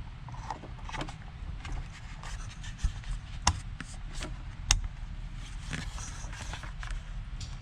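Plastic clicks, taps and rubbing from handling the loader's HVAC control panel and its plug connector, with two sharper clicks about three and a half and four and a half seconds in, over a steady low hum.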